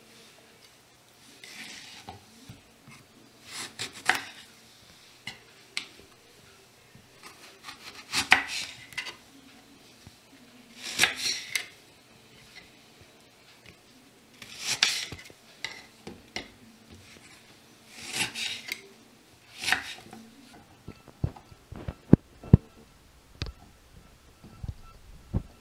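Knife slicing through brinjal (eggplant) and meeting a bamboo cutting board: about seven slow cuts, a few seconds apart. Near the end, a run of sharp short knocks as the pieces go into a steel bowl.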